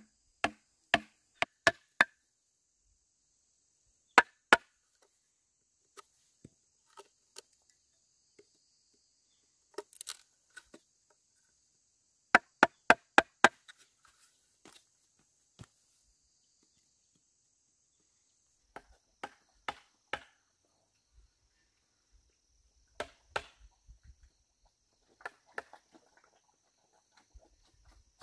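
Sharp chopping strikes on bamboo, in quick runs of two to five blows with pauses between.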